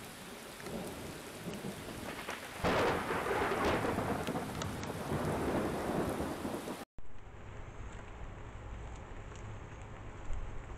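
Heavy rain hissing steadily, with a sudden clap of thunder about three seconds in that rumbles on loudly for several seconds. The rain cuts off abruptly near seven seconds, leaving a quieter, steady outdoor background with a faint low hum.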